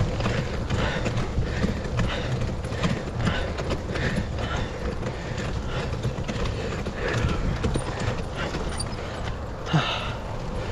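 Mongoose Amplifier II full-suspension mountain bike ridden along a dirt forest trail: a steady low rumble of tyres and wind on the camera mic, with a rhythmic clatter of about two knocks a second. A sharp knock near the end is the loudest sound.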